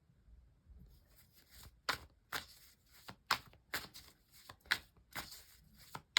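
Tarot cards being shuffled by hand: a run of light, crisp card snaps, about two to three a second, starting about a second in.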